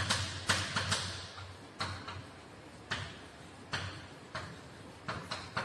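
Chalk writing on a blackboard: about nine irregular strokes, each a sharp tap followed by a short scratch as the letters are written.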